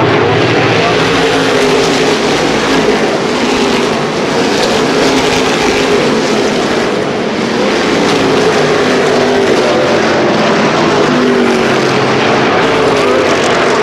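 A field of NASCAR Whelen Modified race cars running laps together, several V8 engines at high revs overlapping, their pitches rising and falling as the cars pass.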